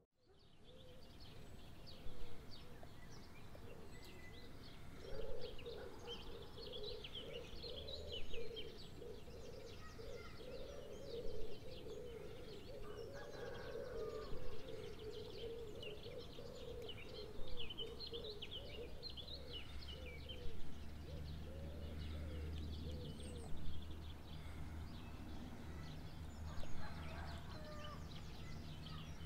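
Outdoor birdsong: many small birds chirping and twittering, with a louder call repeating about every three seconds, fading in at the start. A faint low rumble sits underneath in the latter part.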